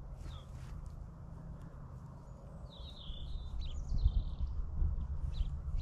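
Wind buffeting the microphone as a steady low rumble, with small birds chirping over it. A longer warbling bird phrase comes a little under three seconds in, and the rumble grows stronger in gusts near the end.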